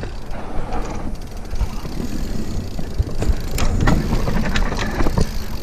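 Mountain bike riding fast down a dirt trail: a steady low rumble of tyres and wind, with scattered knocks and rattles from the bike over bumps, a few sharper ones from about three seconds in.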